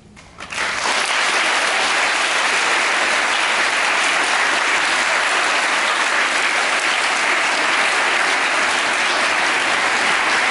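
A large crowd applauding: the clapping breaks out suddenly about half a second in and holds as a dense, steady applause.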